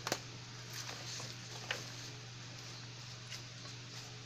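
A pot of sinigang broth with fish and tomatoes simmering on the stove, with a steady low hum and an even hiss. A couple of light clicks come at the start and again about a second and a half in.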